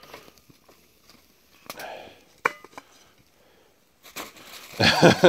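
Metal camp cookware and utensils clinking, with a couple of clinks ringing on briefly. There is a louder, short noisy burst near the end.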